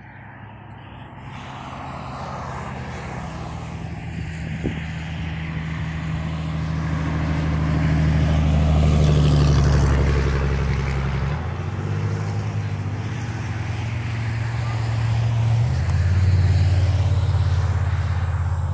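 Road traffic on a highway: engine drone with tyre noise, swelling to its loudest about halfway through and again near the end. The engine's pitch shifts twice, once a little past halfway and again a few seconds later.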